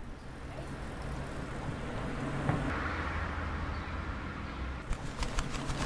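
Street ambience: a steady low rumble of road traffic, with a quick run of sharp clicks near the end.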